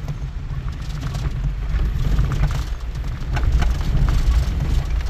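A car driving over a rough gravel and dirt road, heard from inside the cabin: a steady low rumble with many small clicks and crackles of stones under the tyres.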